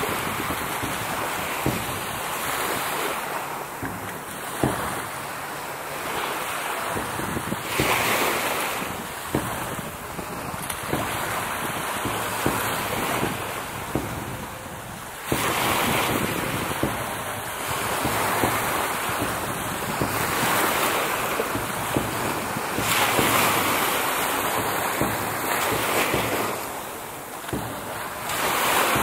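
Small sea waves washing and lapping, with wind buffeting the microphone; the noise swells and eases every few seconds, with a few sharp knocks.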